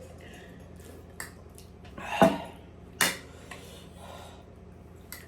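Cutlery clinking against plates and bowls during a meal: two sharp clinks about two and three seconds in, with fainter ticks around them.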